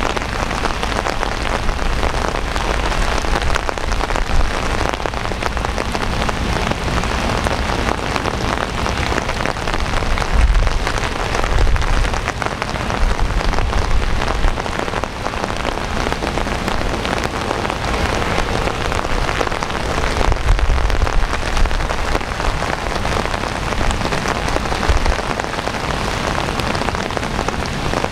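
Heavy rain falling steadily, a dense even hiss of drops on hard surfaces. A deep low rumble swells underneath it twice, about a third and two-thirds of the way through.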